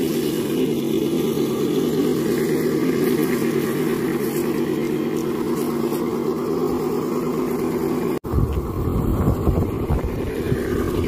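Electric drivetrains of RC scale crawler trucks humming steadily as they crawl over grass. About eight seconds in the sound cuts off abruptly and gives way to an uneven low rumble.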